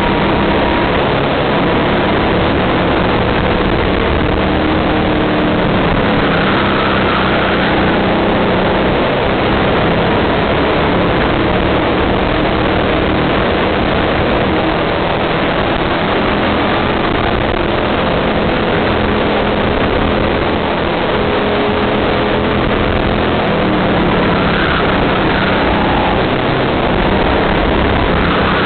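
Kart engine running hard through a lap, heard from an onboard camera on the kart, with a dense rush of wind and road noise over it; the engine note shifts a little in pitch through the corners.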